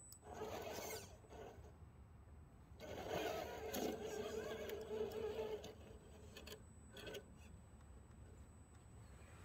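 Electric motor and geared drivetrain of an RC rock crawler, whining in two bursts as it climbs over rocks, the second longer and holding a steady pitch, followed by a few faint clicks of tyres and rocks.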